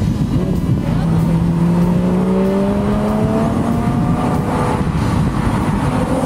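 Car engine pulling up through the revs while driving, its pitch rising steadily for a few seconds, over loud steady road and wind noise.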